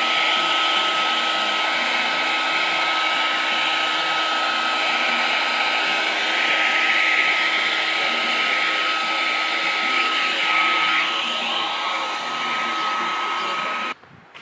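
Electric heat gun blowing steadily with a constant whine, held against matte black vinyl wrap on a car grille to soften it so the edges can be tucked. It cuts off suddenly near the end.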